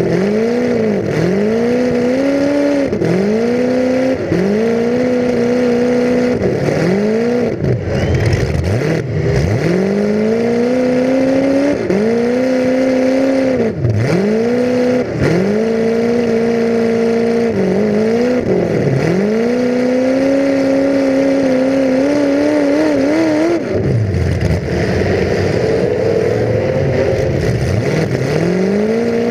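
A full-size demolition derby car's engine, heard from inside the car, is revved hard over and over: its pitch drops sharply and climbs back every second or two. A few sharp bangs or knocks come in among the revs.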